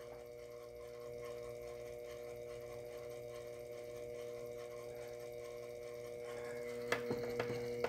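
Sherline 4000 milling machine's spindle motor running steadily, spinning an edge finder: a faint even hum. A few light ticks come near the end.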